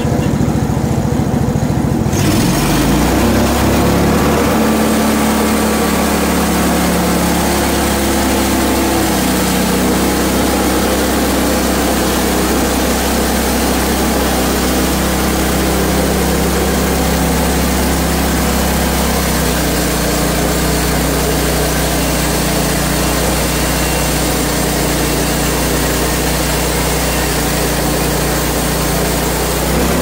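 Hud-Son HFE-30 portable bandsaw mill's gasoline engine speeds up about two seconds in. It then runs steadily at high speed with the band blade spinning, as the saw head is pushed through a hard maple log.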